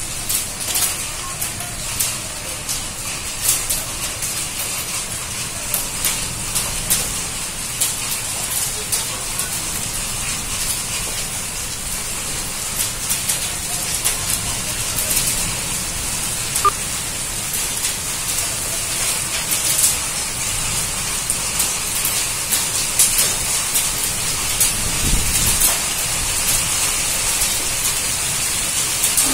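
Heavy downpour with hail: a steady hiss of rain with frequent sharp ticks of hailstones striking hard surfaces, growing a little louder toward the end.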